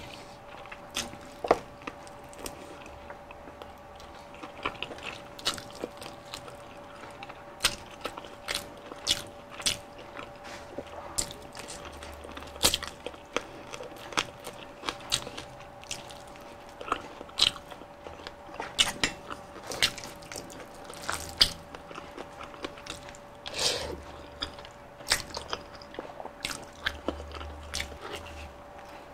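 Close-miked biting and chewing of crispy fried chicken, Jollibee Spicy Chickenjoy, with sharp crackles of the breaded skin coming at irregular intervals over a faint steady hum.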